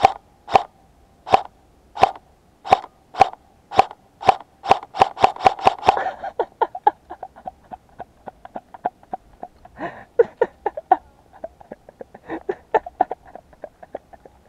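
Airsoft M4A1 electric gun (AEG) firing single shots, a sharp pop roughly every two-thirds of a second, quickening to several shots a second about four seconds in. From about six seconds on only softer, quicker clicks and rustles remain.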